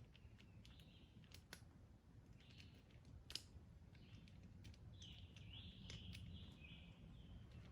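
Faint chirping of small birds over near silence, with a longer run of chirps in the second half. A few faint sharp clicks, the sharpest a little past three seconds in.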